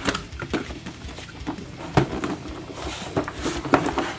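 Cardboard toy box being handled and opened by hand: a series of taps, scrapes and rustles of card, the sharpest knock about two seconds in.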